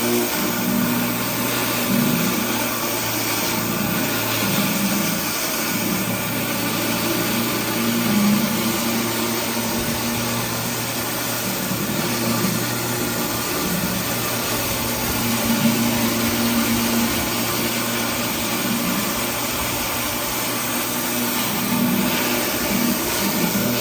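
Pressure washer running: a steady engine drone with a constant hiss of high-pressure water spray over it.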